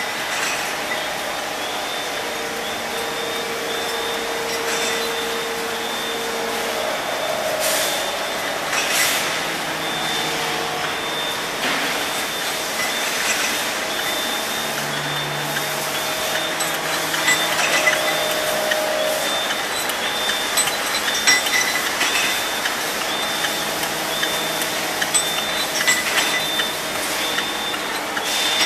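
Production-line machinery running steadily at a line of LGM75C double disc grinders for connecting rods, with a high-pitched beep repeating about once a second and a few short hisses of air.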